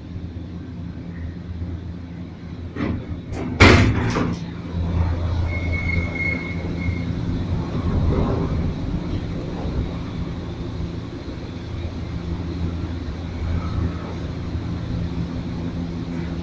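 Cable car cabin travelling with a steady low hum and rumble, broken about three and a half seconds in by a loud sharp clunk with a few smaller knocks around it.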